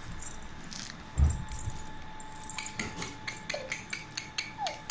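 Hands handling and unwrapping a small plastic-wrapped jewellery parcel: a dull thump about a second in, then a quick run of light clicks and rattles.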